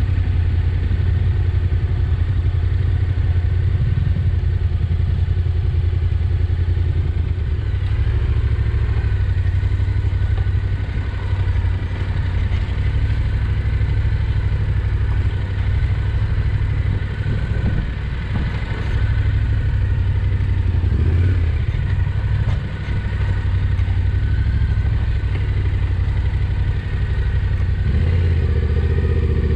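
Yamaha Ténéré 700's 689 cc parallel-twin engine running at low, slightly varying revs while the motorcycle is ridden slowly along a rough dirt track.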